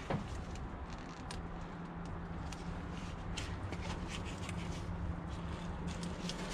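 Rubber hoses and plastic fittings being handled and pushed on at a carburetor with gloved hands and a hand tool: scattered small clicks and rustles. A steady low hum runs underneath from about a second in.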